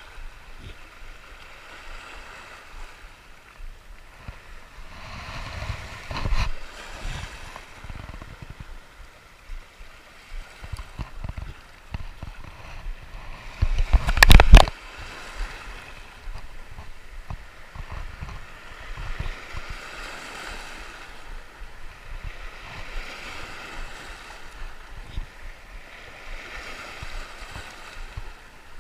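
Small waves washing onto a stony shore, the wash rising and falling every few seconds, with low rumbles on the microphone and one loud, brief burst of noise about halfway through.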